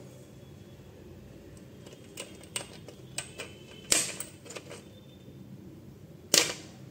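Flush cutters snipping through the metal pins of an air-conditioner inverter board's intelligent power module (IPM) one by one: a string of sharp, irregular snips, the loudest about four seconds in and another near the end. The shorted module is being cut off the board instead of desoldered.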